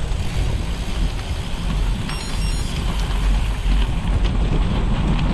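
Wind buffeting an action camera's microphone on a moving bicycle, with a steady deep rumble. About two seconds in, faint high-pitched tones sound briefly.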